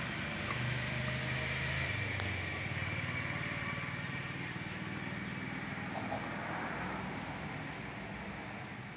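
Steady hum of road traffic, with vehicle engines running and a hiss.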